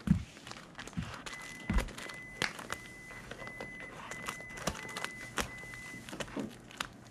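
A cat scratching at the spines of spiral-bound binders on a shelf, sharpening its claws, with scrapes and clicks as its claws catch and a few soft thumps, the loudest right at the start and about a second and a half in.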